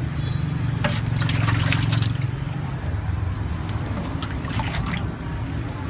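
Liquid sloshing and trickling as a ladle scoops it in a stainless steel pot, with light metal clinks, over a steady low hum.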